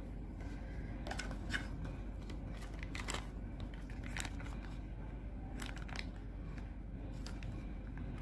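Scattered light clicks and taps from handling a plastic rose water bottle and a glass bowl on a plastic tray, over a low steady hum.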